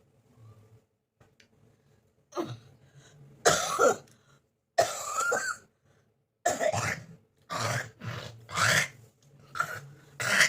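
A person coughing hard from a bad cold: a run of about seven harsh coughs, starting a little over two seconds in and coming about once a second.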